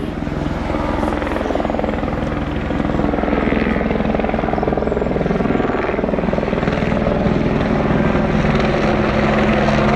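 Helicopter overhead lifting a mast slung on a long line, its rotor beating in a steady rapid pulse, growing gradually louder.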